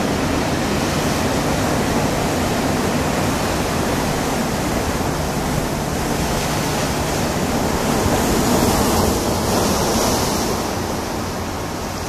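Ocean surf breaking and whitewater rushing in a continuous wash of noise, swelling for a couple of seconds about eight seconds in.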